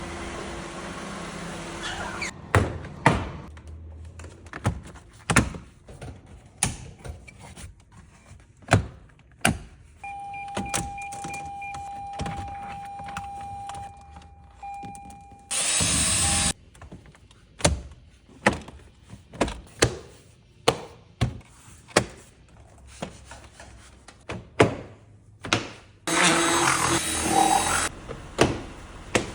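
A run of clicks and thunks from handling a Lexus RX350's interior, with an electronic tone held steady for about five seconds near the middle. Two loud whooshing noises come midway and near the end.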